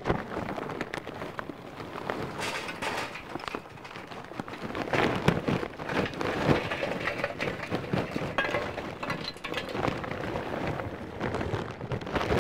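Royal Oak hardwood lump charcoal poured from the bag into a metal chimney starter, the chunks clattering against the steel and each other in a continuous run of clicks and cracks.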